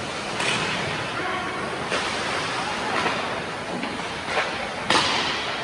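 Ice hockey play in a rink: several sharp cracks of sticks and puck, the loudest about five seconds in, over a steady noisy rink background.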